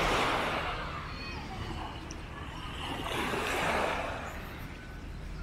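Small waves washing onto a sandy beach, the surf swelling twice, about three seconds apart.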